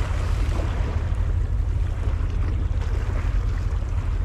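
Wind rumbling on the microphone over the sea washing against concrete breakwater blocks: a steady wash with no distinct events.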